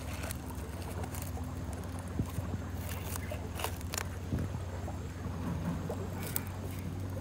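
Dry, charred corn husk rustling and crackling as it is peeled by hand off a fire-roasted ear of corn, with a few sharp snaps scattered through, over a steady low rumble.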